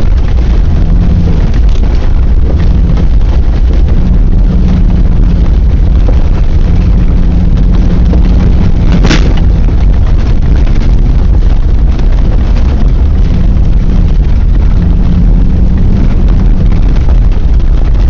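Ford Bronco driving over a rough gravel trail: a loud, distorted low rumble from the vehicle, with an engine hum that comes and goes, and one sharp click about halfway through.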